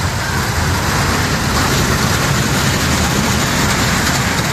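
Funfair mini train ride, a small dragon-fronted coaster, rolling on its raised steel track: a steady rumble of wheels on rails that grows louder about a second in as the cars pass close by.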